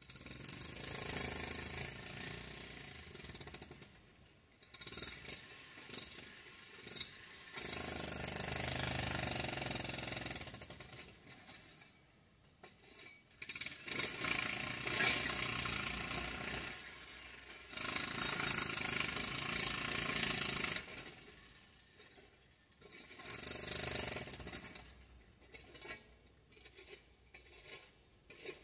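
Jackhammer breaking up concrete, run in spurts of a few seconds with short pauses between, and a few separate knocks near the end.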